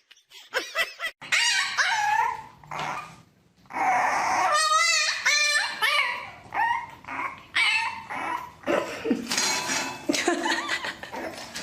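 A pet animal calling over and over: a string of high, wavering cries and whines that rise and fall in pitch, with a warbling one about five seconds in.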